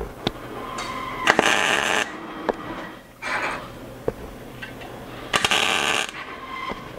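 MIG welder striking short tack welds on steel: three brief bursts of crackling arc, about a second and a half in, a little after three seconds, and about five and a half seconds in. Light clicks sound between the bursts.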